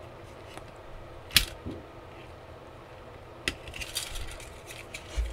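Handling clicks and taps from a small plastic remote-control toy being switched on and turned over in the hands. One sharp click about one and a half seconds in is the loudest, with lighter ticks and taps later and a dull knock near the end.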